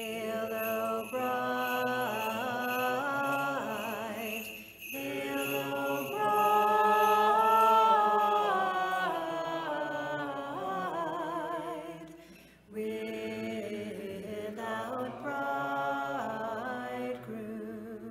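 Unaccompanied Orthodox liturgical chanting: voices singing a slow melody in long held notes with vibrato, phrase by phrase, with short breaks about five and twelve seconds in.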